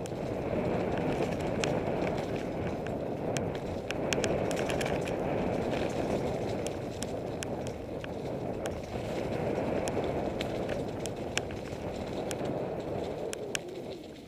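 Mountain bike riding fast downhill on a dirt singletrack, heard from a camera on the bike or rider: a steady rumble of tyres over the trail, with frequent sharp clicks and rattles from the bike.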